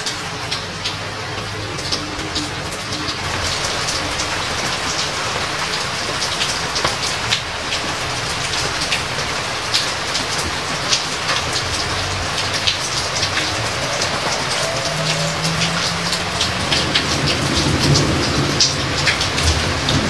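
Steady heavy rain with a dense patter of drops, and thunder rumbling low underneath, growing louder near the end.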